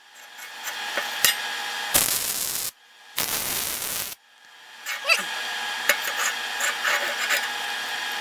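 Arc welder tacking steel hinge parts: two short bursts of crackling hiss that start and stop abruptly, then a longer, steady crackling weld from about five seconds in.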